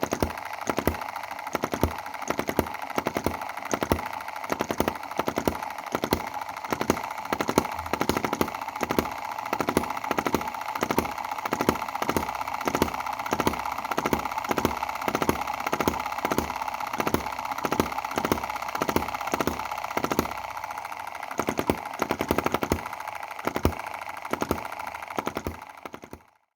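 Small SAM EM2 model hit-and-miss gasoline engine running with a steady beat of about two knocks a second, sharp firing bangs mixed with softer strokes where it skips a firing cycle: the misfire that the owner is chasing. The beat thins out for a couple of seconds near the end, picks up again, then cuts off suddenly.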